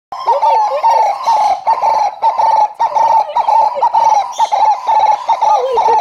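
Lady Ross's turaco calling: a loud, unbroken run of short notes, about three a second, each bending up and down in pitch.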